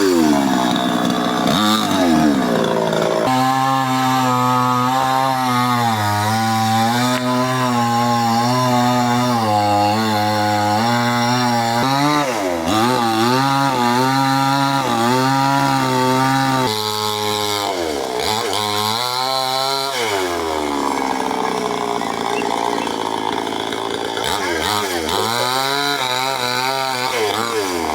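Chainsaw engine running under load, its pitch holding fairly steady through a long stretch of cutting, then swooping down and up repeatedly as the revs fall and rise in the later part.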